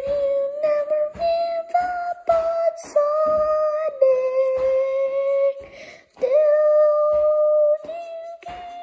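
A high voice, likely the child's, singing long wordless held notes over a steady clicking beat, with a short break about six seconds in.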